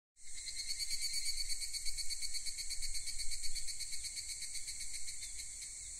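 Insects chirring: a steady, high-pitched, rapidly pulsing buzz that starts just after the beginning and eases off a little near the end.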